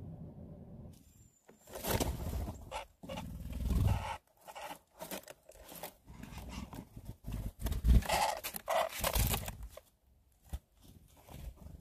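Irregular knocks, scrapes and rustles of a red-bellied woodpecker pecking and shuffling through seed on a wooden tray feeder right by the microphone.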